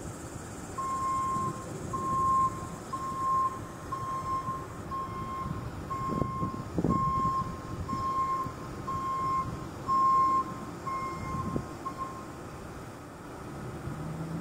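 A truck's backup alarm beeping at one steady pitch, about once a second, a dozen times, stopping about two seconds before the end, over a low rumbling noise.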